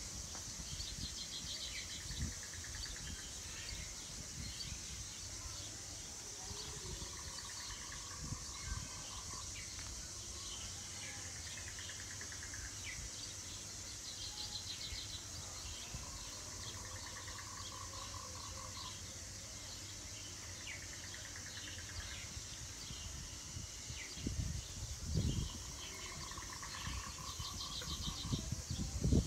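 Outdoor ambience: birds chirping in short repeated trills over a steady high insect hum, with low rumbles on the microphone that pick up near the end.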